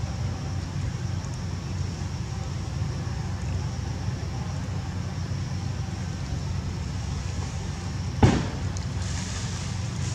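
Steady low outdoor rumble, like wind on the microphone, with a faint steady high-pitched hum over it. A single sharp knock comes about eight seconds in.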